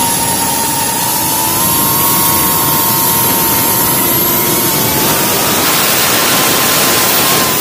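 iH3 Pro FPV quadcopter's brushless motors and propellers whining in flight, picked up by the onboard camera's microphone, over a heavy rush of wind and prop wash. The whine holds steady, dips about five seconds in as the throttle changes, and then climbs again.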